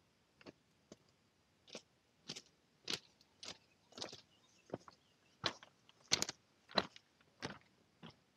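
A hiker's footsteps crunching on loose limestone scree and rock, a steady walking pace of a little under two steps a second. They grow louder as the walker comes close and are loudest a second or two before the end.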